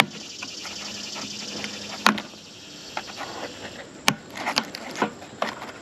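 Scattered sharp knocks and clicks, about six in all: one at the start, one about two seconds in, and a quick cluster of four near the end, over a steady high hiss.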